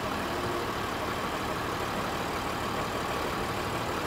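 Bedford MJ/MK 4x4 truck's engine running steadily at low speed, heard from inside the cab as the truck creeps forward.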